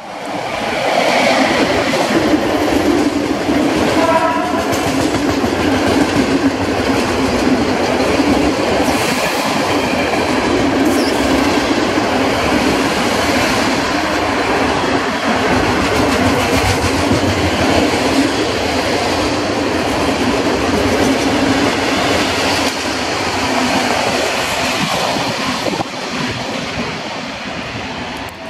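Container freight train hauled by an EU07 electric locomotive passing close by, the wagons rumbling and clattering over the rails with a steady loud noise that eases near the end. A brief horn blast sounds about four seconds in.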